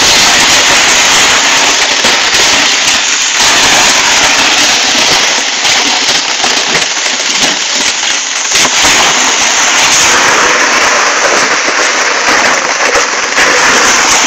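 Loud, continuous crackling hiss with little low rumble.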